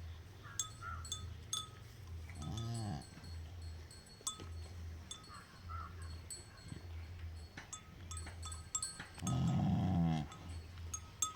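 Cattle calling twice: a short call about two and a half seconds in and a longer, louder one near the end. A bell clinks on and off throughout.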